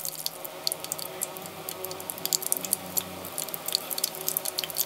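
Battered enoki mushrooms deep-frying in hot oil: a steady sizzle full of quick small crackles and pops.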